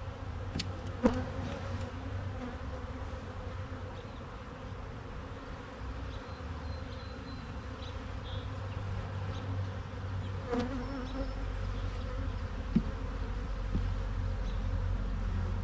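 Honey bees buzzing steadily around an open hive as its frames are handled, with a few short knocks.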